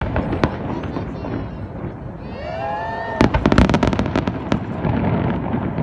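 Aerial fireworks going off: scattered cracks, a whistle rising in pitch about two seconds in, then a rapid volley of sharp bangs and crackles for about a second and a half.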